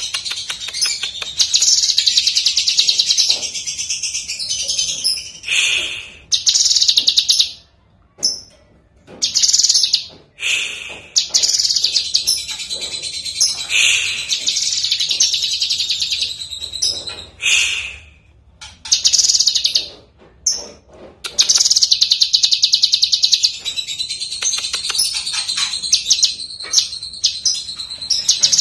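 Cucak kinoi leafbird singing: loud, high-pitched phrases of rapid rattling trills and chatter, broken by short pauses.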